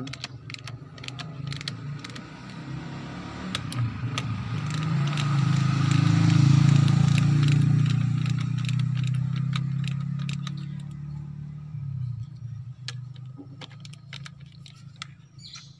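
Socket ratchet clicking in short runs as the rocker-arm shaft bolts on a Mitsubishi L300 diesel cylinder head are tightened a little at a time against valve-spring pressure. A passing vehicle's engine hum swells to the loudest sound about halfway through, then fades.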